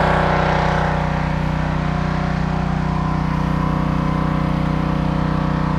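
Northern Tool 3000 psi gas pressure washer's engine running steadily, a constant drone that eases slightly about a second in.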